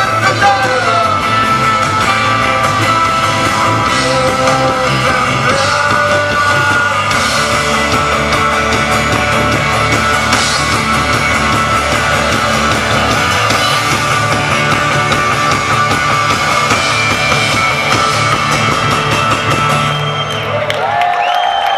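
Live rock band playing loud through a PA, with electric and acoustic guitars, drums and singing. The song ends about twenty seconds in, and the crowd starts to cheer.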